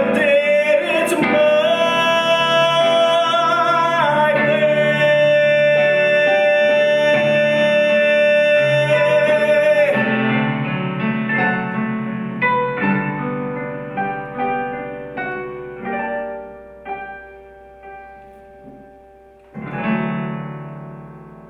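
Singing over piano accompaniment on a long held, wavering note, after which the piano goes on alone with a string of separate notes, each dying away. Near the end it strikes a final chord that rings out and fades.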